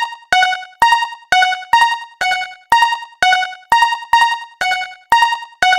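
Japanese railroad crossing (fumikiri) electronic warning bell ringing in evenly spaced strikes, a little over two a second, each dying away quickly.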